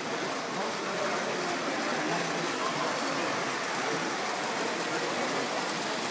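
Vintage tinplate gauge 0 model trains running on their track with a steady rattle, under voices in the background.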